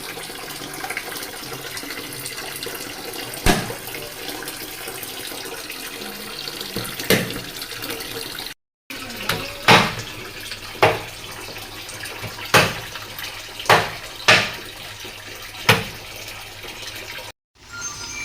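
Water running from a tap with splashing. After a sudden break a little over halfway through, about six sharp knocks stand out above the water, roughly one to two seconds apart.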